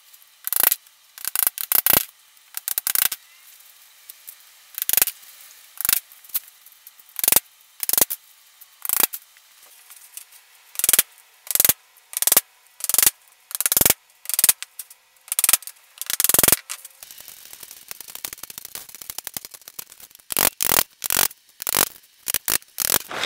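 Claw hammer driving staples through welded wire mesh into a wooden door frame: sharp separate strikes, about one a second, coming in quicker runs near the end.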